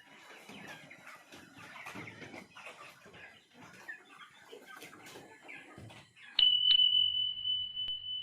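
A flock of chickens clucking and calling in many short overlapping notes. About six seconds in, a loud steady high-pitched electronic tone with a low hum under it starts suddenly and holds, drowning out the birds.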